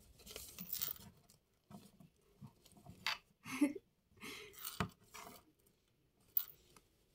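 Faint rustling and light clicks as hands handle a plastic fashion doll, with one sharper click near the end.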